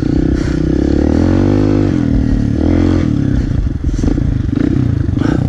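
Kawasaki KLX pit bike's single-cylinder four-stroke engine running close by, revving up and easing back off about a second in and again near the three-second mark.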